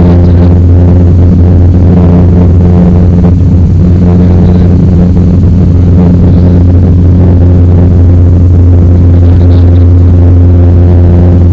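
Light aircraft's piston engine and propeller droning steadily at a constant cruise setting, a loud, even, deep hum with no change in pitch.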